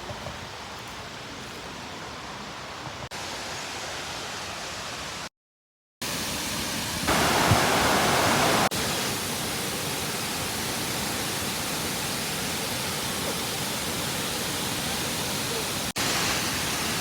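Waterfall water rushing and splashing as a steady noise, changing in loudness at abrupt cuts, with a brief dropout to silence about five seconds in and the loudest stretch around seven to nine seconds.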